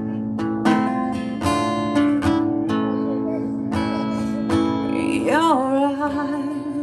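Acoustic guitar strummed slowly and evenly in an instrumental break of a slow song. About five seconds in, a long held note slides up and wavers over the chords.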